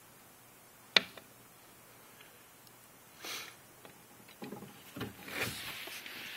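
A single sharp click about a second in, then irregular bursts of rustling and rubbing: handling noise from the handheld camera as it is moved about the terrarium.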